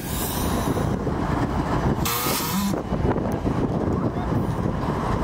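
Union Pacific diesel locomotives passing close by, a steady rumble with wind buffeting the microphone. About two seconds in, a short hiss of air blows off, a sound likened to a fart.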